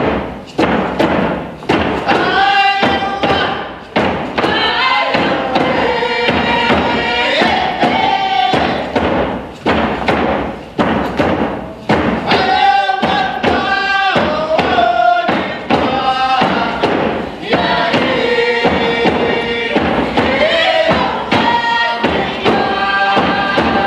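Hand drums struck in a steady beat while a group of voices sings a First Nations song over them.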